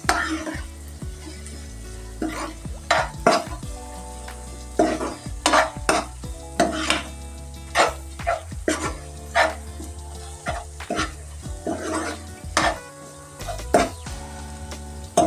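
A steel ladle stirring and scraping a thick onion-tomato masala around a nonstick frying pan, with the masala sizzling in the oil. The ladle's scrapes come irregularly, several a second at times.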